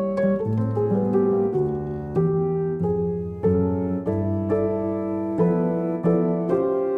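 Background piano music: a slow, gentle melody, each sustained note changing every half second or so.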